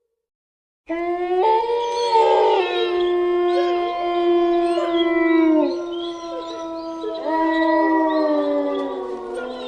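Ghost sound effect: long wailing tones that slide up and down in pitch, several overlapping at once. It starts suddenly about a second in after silence and fades near the end.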